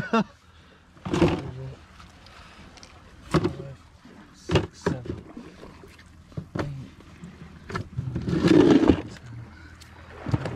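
Scattered knocks and handling noises as a pile of freshly caught mackerel is sorted and counted, with a louder burst of noise about eight seconds in.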